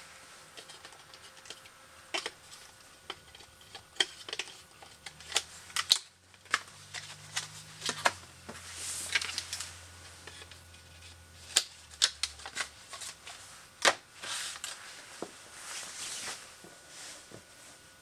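Plastic packaging being handled by hand: a run of sharp clicks and crinkles, with rustling swells around the middle and again near the end.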